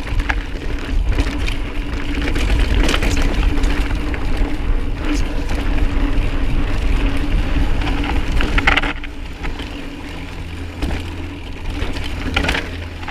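A mountain bike being ridden on a dirt trail: heavy wind rumble on the microphone, with tyre noise and clicks and rattles from the bike. It eases off about nine seconds in.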